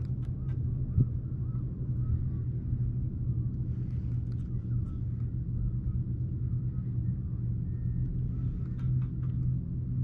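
Steady low motor hum with an even drone that does not change, with a few faint high chirps and light ticks over it.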